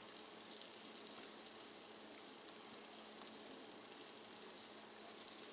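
Faint, steady sizzling and crackling of tandoori chicken legs in a hot fry pan.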